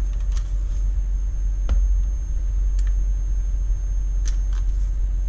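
Steady low rumble with a faint, thin high-pitched whine and a lower hum running through it. A few light clicks break it, with one duller knock a little under two seconds in.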